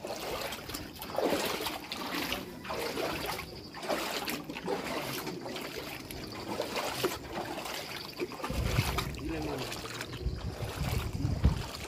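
Floodwater trickling and splashing, picked up on a phone's microphone. A low rumble comes in about two-thirds of the way through.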